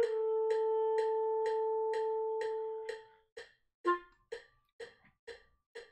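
B-flat clarinet holding a long note under a fermata that fades out about three seconds in, then a short accented final note near four seconds. An online metronome clicks steadily at 126 beats per minute, about two clicks a second, all the way through.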